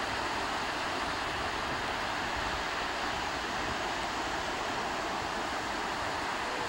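Steady, even rush of surf on a beach, with no separate waves standing out.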